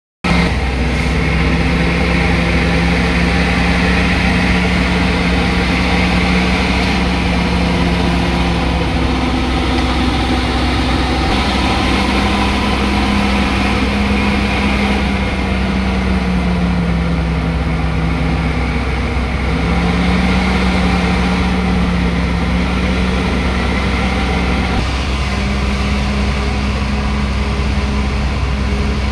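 Komatsu bulldozer's diesel engine running steadily with a deep rumble, its pitch dipping and recovering a few times.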